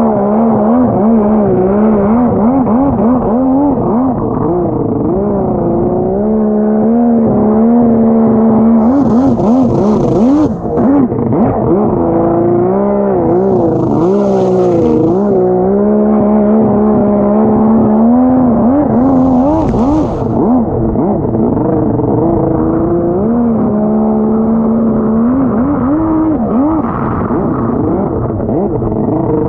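Yamaha Superjet stand-up jet ski, engine-swapped to a 1200cc two-stroke triple, running hard on the water: the engine note holds steady for stretches and then swings up and down over and over as the throttle is worked. About a third of the way in, near halfway and again a little later there are brief bursts of hiss from spray.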